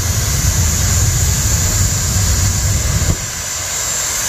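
Two jet dragsters' jet engines on afterburner as they launch, a loud low rumble that drops off about three seconds in as the cars pull away down the track.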